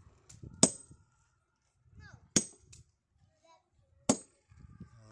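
Sledgehammer striking steel wedges driven into a row of drilled holes in a stone block to split it: three sharp metallic clanks with a brief ringing tail, about a second and a half apart.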